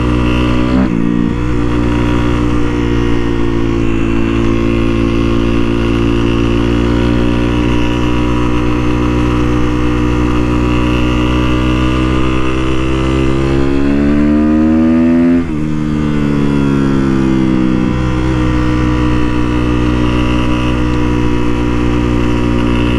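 Sportbike engine running at a steady cruise under way. About fourteen seconds in the revs climb for a second and a half, then drop abruptly as it shifts up, and it settles back to a steady pull.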